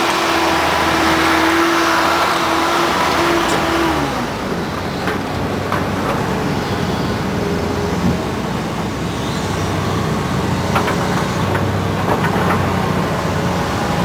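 Case 450CT compact track loader's diesel engine running, with a steady whine that drops in pitch about four seconds in as it throttles down; it then runs on a little quieter, with a few faint clicks.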